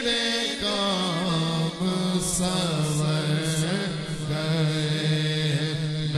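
Male voice chanting a naat, an Islamic devotional song, with ornamented, wavering melody over long held notes.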